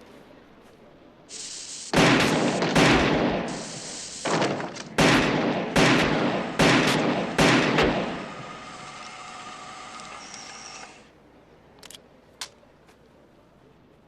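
Six shots from a Colt Python .357 Magnum revolver, fired in quick succession: two shots, a pause of about two seconds, then four more a little under a second apart, each with a ringing tail.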